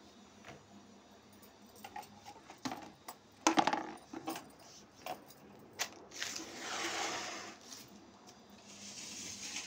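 Plastic bottles clattering and knocking against each other and against a plastic bucket as they are packed into it by hand, a run of sharp knocks with the loudest about three and a half seconds in. Two longer rustling spells follow in the second half as the bottles are shifted in the bucket.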